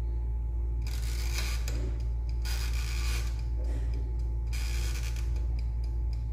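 Countertop electric oven's mechanical timer knob being turned: a rasping, ratcheting clicking in three spells, then the timer ticking evenly near the end, over a steady low hum.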